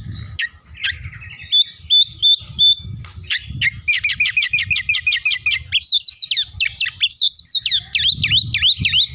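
Oriental magpie-robin (kacer) singing loudly: a few repeated whistled phrases, then a fast rattling run of notes about halfway through, and a string of sharply falling whistles near the end. Low muffled thumps sit underneath.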